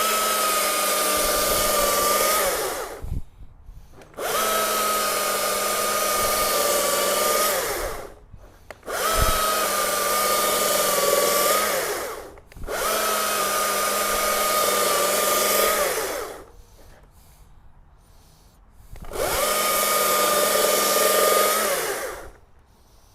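Stihl MS 500i fuel-injected two-stroke chainsaw run at full throttle through an oak log, five cuts of about three to four seconds each, the pitch dropping off at the end of each as the throttle is released; the longest pause comes before the last cut.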